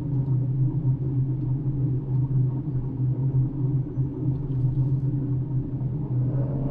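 Diesel engine of a floating barge crane running steadily, a low droning hum heard from the operator's cabin. A fainter, higher hum comes in near the end.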